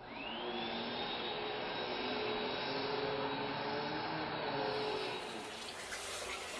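An electric appliance motor switching on and running. A whine rises over about the first second and then holds steady over a rushing air noise, easing off after about five seconds.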